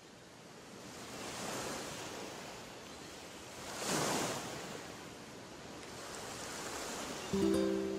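Sea waves washing in, rising over the first second and a half, with a bigger swell about four seconds in. Music starts near the end.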